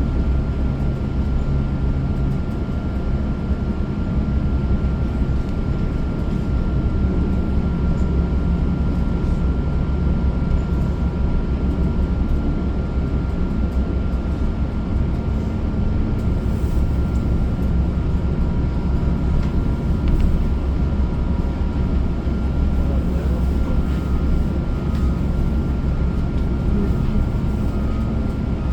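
Inside a moving city bus: steady low rumble of the engine and road, with a faint steady whine over it.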